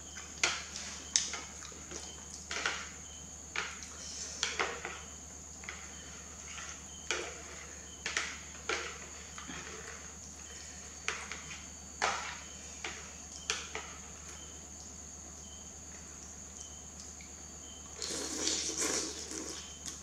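Close-miked eating of instant noodle soup: wet chewing and mouth clicks, and chopsticks stirring noodles in the bowl, in short scattered bursts. Near the end comes a longer, louder stretch as a mouthful of noodles is slurped up.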